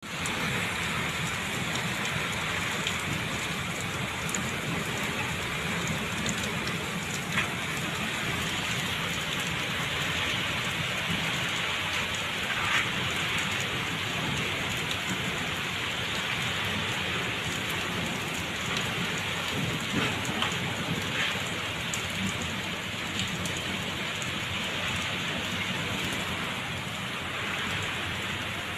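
Heavy rain pouring down in a thunderstorm, a steady hiss with a few sharp drop hits scattered through it.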